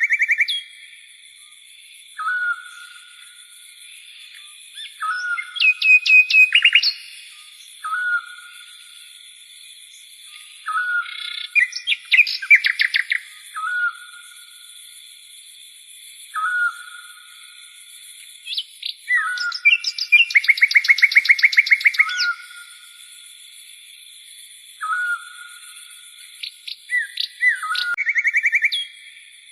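A bird singing: a short slurred note repeated about every three seconds, broken by bursts of fast, rattling trills that are the loudest parts. A steady high-pitched tone runs underneath.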